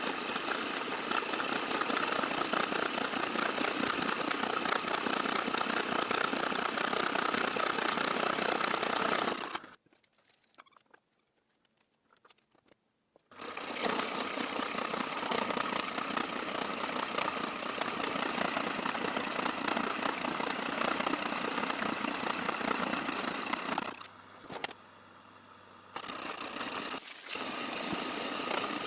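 Manual milling machine running and machining an EN8 steel workpiece, a steady motor-and-cutting noise. It stops abruptly for about three seconds near the middle and drops lower for a couple of seconds near the end.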